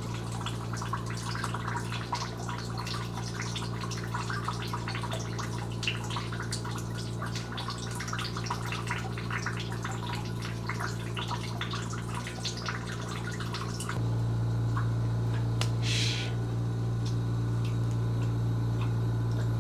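Sewer water from a cut drain line dripping and splashing into a bucket as the line drains out, over a steady low hum. About fourteen seconds in the dripping stops and the hum gets louder.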